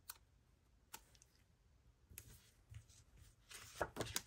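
Paper sticker sheets being handled: a few faint isolated clicks and taps, then a louder cluster of rustles and flaps near the end as the sheets are flipped over.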